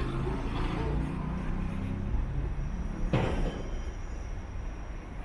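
Street sound with a motor vehicle's engine running, and two sharp knocks about two seconds apart, the first about three seconds in and the second near the end.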